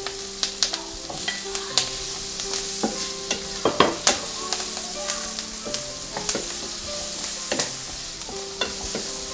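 Chopped bell peppers and red onion sizzling in butter in a frying pan while a wooden spatula stirs them, with irregular clacks and scrapes against the pan; the last pepper pieces are tipped in from a plate at the start.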